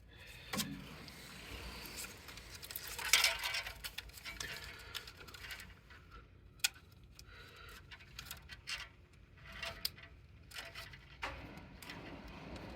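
Hands handling a printer cable and its plastic connector at the carriage board: irregular small clicks and rustling, with a louder cluster of clicks about three seconds in and a single sharp click about halfway.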